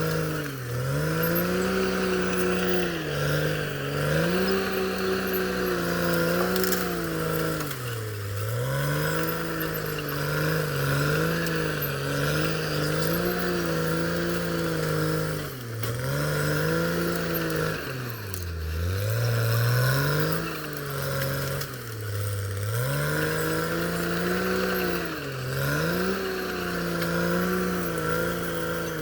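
Caterpillar D6R XL bulldozer's diesel engine working under heavy load. Its pitch sags and recovers again and again as the engine lugs down and picks back up, with the deepest drop a little past the middle.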